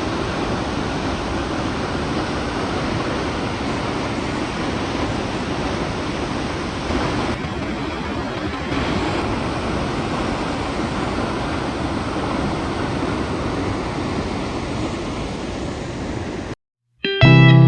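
Steady rushing of a waterfall, Ram Falls' 20-metre drop, an even noise with no breaks. Near the end it cuts off abruptly and guitar music begins.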